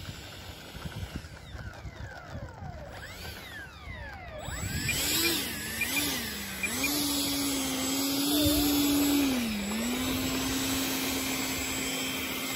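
The 70 mm electric ducted fan (12-blade, 2150kv motor) of an RC model jet whining. It is faint at first with sliding, falling pitch sweeps, then from about four and a half seconds a louder steady whine that dips and rises in pitch a few times before settling.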